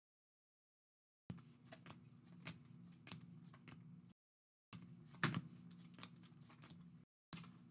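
Trading cards being slid and flipped through the hands: faint papery rustling with small clicks, a sharper snap about five seconds in. The sound cuts out to dead silence twice.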